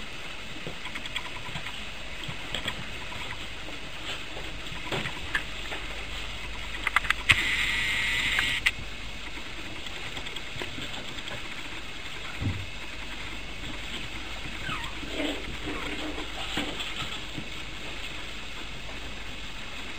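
Puppies playing on a tiled floor: scattered light taps and scuffles over a steady background hiss. A louder noisy burst of about a second and a half comes about seven seconds in, and a dull thump a few seconds later.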